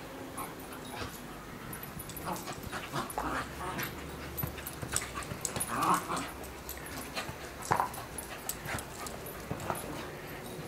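Jack Russell terrier making short, scattered vocal sounds, loudest about two, six and eight seconds in, with light clicks and knocks in between.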